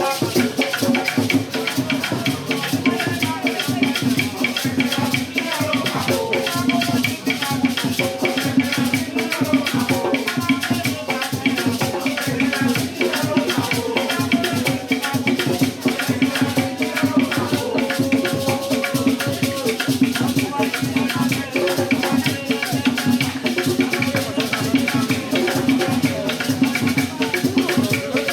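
Background music with a fast shaker-and-drum beat over a steady low drone.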